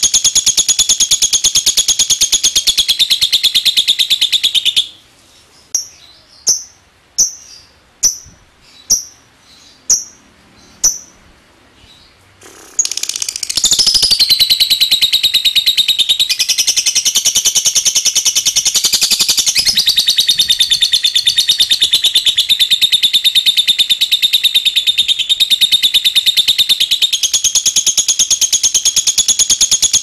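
Fischer's lovebird singing its long 'ngekek' chatter: a very fast, even, high-pitched trill. About five seconds in it stops and gives way to a run of about eight separate short chirps ('ngetik') spaced under a second apart, then about thirteen seconds in the fast trill starts again and carries on.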